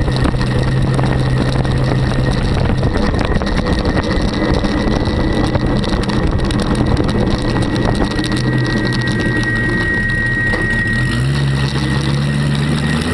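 Small-block 350 Chevrolet V8 of a custom trike running at low road speed. Its note is steady at first, drops about three seconds in, and rises again near the end as it picks up.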